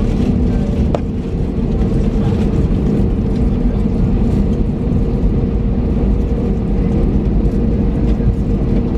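Cabin noise of an Airbus A321neo taxiing: a steady low rumble from the engines and the wheels rolling, with a steady hum over it. A single short click about a second in.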